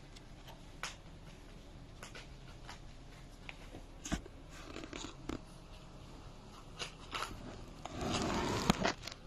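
Persian cats nibbling at a pot of cat grass: scattered crisp bites and snaps of the blades, with a longer stretch of rustling and chewing about eight seconds in.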